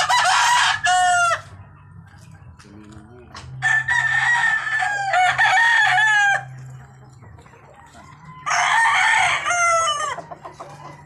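Gamefowl roosters crowing: three loud crows a few seconds apart, each ending in a falling note, the middle one the longest.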